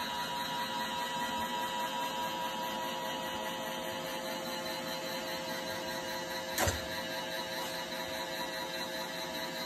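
Roomba robot vacuum running with a steady mechanical hum as it moves about the floor, with one sharp knock about two-thirds of the way through.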